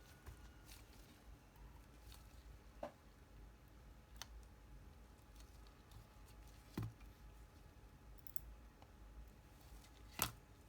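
Faint, scattered clicks and taps from handling small parts and tools during an e-reader repair, about six over ten seconds, the loudest near the end.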